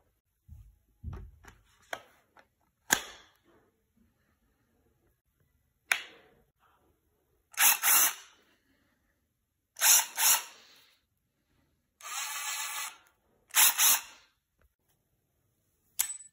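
HART 20V cordless impact driver run unloaded in four short trigger pulls, its motor whirring up and stopping each time. Before these come a few knocks and sharp clicks of the tool and battery being handled, and there is one more click near the end.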